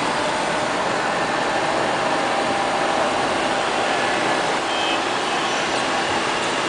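LL-306 (X500) robot vacuum cleaner running as it drives across the floor: a steady whir from its suction fan.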